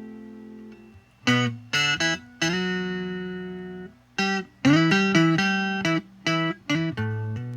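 Rickenbacker 360/12-style electric twelve-string guitar: a held chord dies away, then about a second in the guitar starts a chiming riff of picked chords and single notes with short breaks between phrases.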